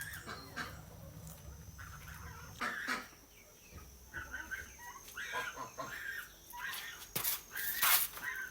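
Farmyard poultry calling: many short, repeated clucking calls, with a few louder, harsher bursts near the end.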